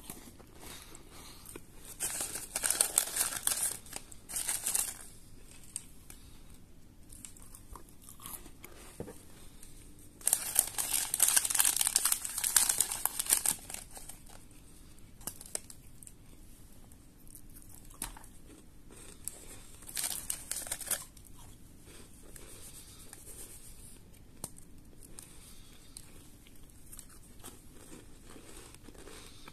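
Foil-lined plastic biscuit wrapper crinkling in three bursts a few seconds long, the longest and loudest near the middle, with crunching as butter-and-oats biscuits are broken apart by hand.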